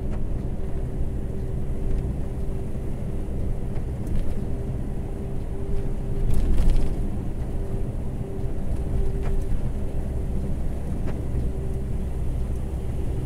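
Volvo FH truck heard from inside its cab while driving: a steady engine and road rumble with a constant hum above it. A couple of sharp knocks come with a brief louder jolt about six and a half seconds in.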